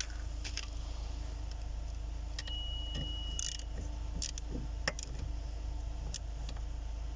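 Light clicks and rattles of plastic and metal parts and wiring being handled and fitted under a car's dashboard, with a sharper knock a little before five seconds in and a brief high tone near the middle, over a steady low hum.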